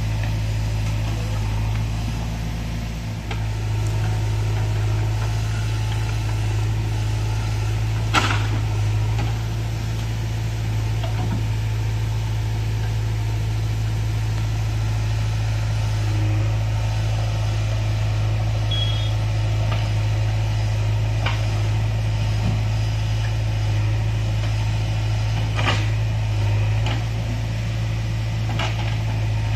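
Diesel engine of a JCB 3DX backhoe loader running steadily under digging load, with a tractor's diesel engine idling alongside, and a few sharp metallic knocks as the bucket works the soil.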